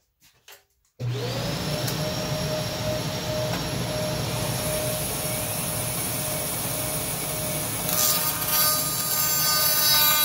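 Woodshop machinery switching on about a second in, after two faint clicks: a motor spins up with a short rising whine, then runs with a steady whir and hum. About eight seconds in the noise grows hissier, with several higher whines added.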